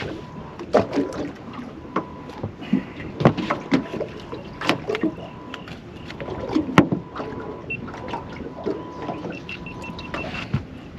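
Irregular knocks and clatters against a small fishing boat's hull and fittings as a hooked barramundi is landed and brought aboard, with a faint steady whine underneath and a short run of quick high beeps near the end.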